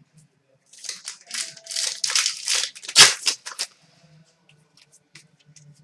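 Crinkling and rustling of a trading-card pack wrapper and cards being handled: a run of scratchy crinkles lasting about three seconds, loudest about three seconds in, followed by a few faint ticks.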